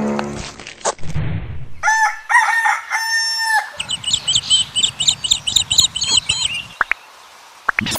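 A rooster crows, and then small birds chirp in a quick run of short, high chirps, about four a second, lasting a few seconds.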